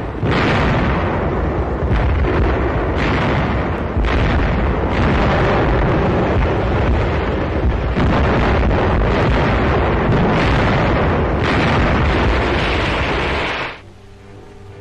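Battle explosions: a dense, continuous run of loud blasts, a new one breaking every second or two, which cuts off suddenly near the end.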